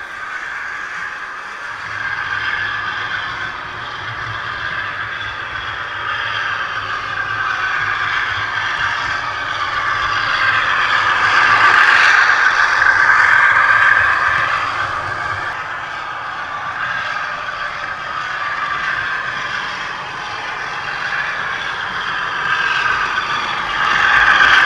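Model trains running on the layout track, a continuous rattling rush of wheels and motors. It swells as a train passes close, loudest about halfway through and again near the end as a diesel comes right up to the camera, with a low steady hum through the first half.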